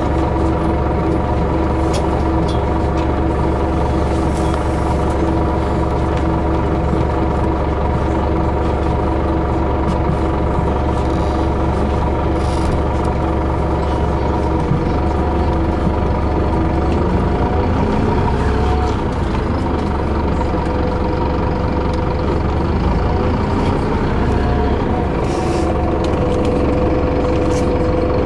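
City bus engine running at a stop, heard from inside the bus as a steady hum with several held tones. From about halfway through, the tones shift as the bus moves off.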